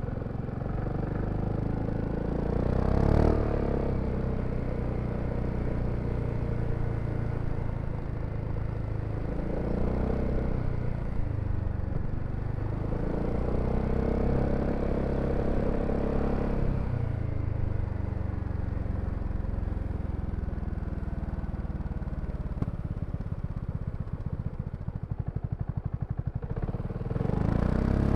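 BMW C400X scooter's single-cylinder engine running on the move, the throttle opening and closing several times so the pitch rises and falls. About three-quarters through it drops to a slow, pulsing idle, then revs up again near the end.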